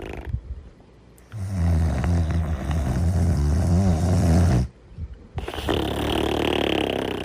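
A sleeping dog character snoring. A deep, low snore starts about a second in and lasts about three seconds. After a short pause, a higher, breathier snore follows near the end.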